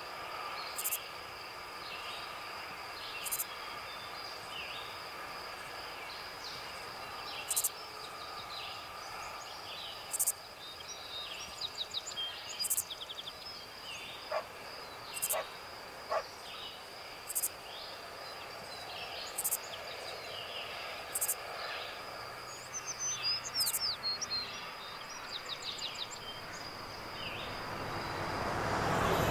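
Outdoor nature ambience: birds chirping every couple of seconds over a steady high insect drone, with a flurry of quick chirps near the end.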